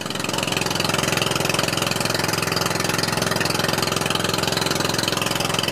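Engine of a motorized outrigger boat (bangka) running steadily under way, with a fast, even pulsing.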